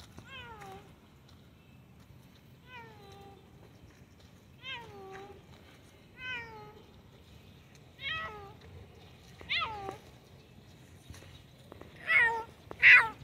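White Turkish Angora cat meowing repeatedly: about eight separate calls, each falling in pitch, a second or two apart, the last two near the end the loudest.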